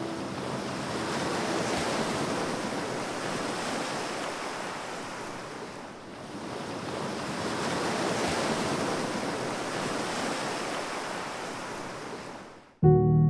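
Gulf surf and wind: an even rushing noise that swells twice and cuts off suddenly near the end.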